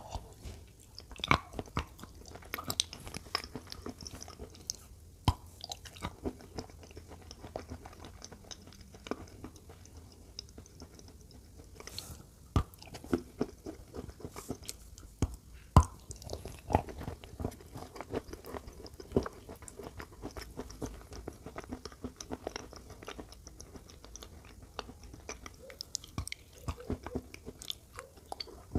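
A person biting and chewing white, chalk-like blocks coated in a thick brown paste, with sharp, irregular crunches.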